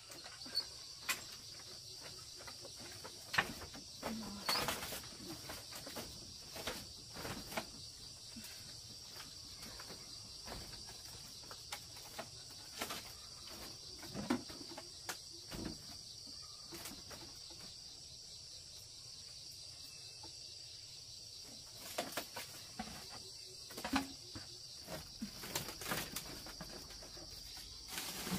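Steady high-pitched insect chorus, with scattered knocks and clatters from people stepping on a bamboo slat floor and setting things down.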